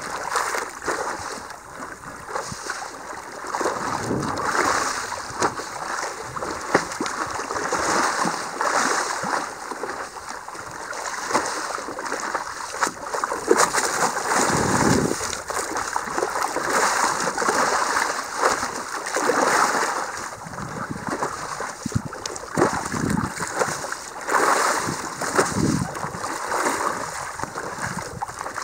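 Seawater lapping and splashing against a windsurf board drifting in light wind, in uneven gushes and surges.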